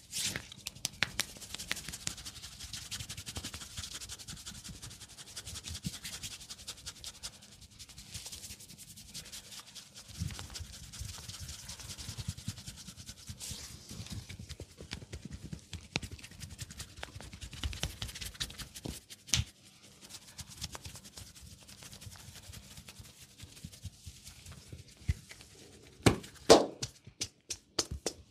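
Hands massaging a head and arm: fingers rubbing and scratching through hair and over bare skin, a dense run of fine crackling and rustling. A few louder sharp slaps sound near the end.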